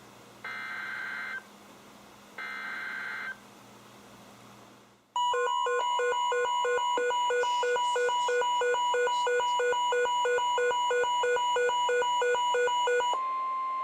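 Two bursts of warbling digital data tone from NOAA Weather Radio, about a second each and a second apart: the SAME header that encodes an emergency alert, here a flood warning. About five seconds in, several weather radio receivers set off their alert alarms together, a loud rapid beeping that runs on and gives way near the end to a short steady single-pitch attention tone.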